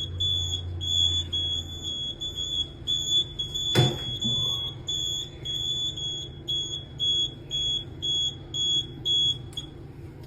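High-pitched fire alarm sounder beeping in quick pulses, about two a second, and stopping near the end. A single sharp click about four seconds in.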